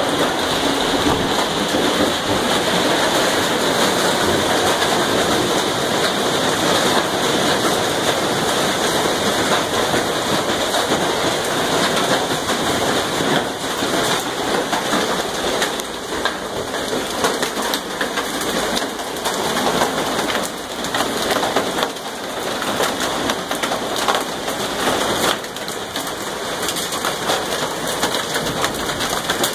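Hailstorm with heavy rain: a dense, steady clatter of hailstones and rain striking the roof, windows and ground, made of countless small impacts.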